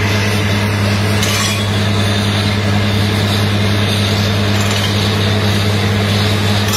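PDTHR 200 truck-mounted water well drilling rig running as it drills, a loud, steady machine drone with a strong low hum and a noisy hiss and clatter over it.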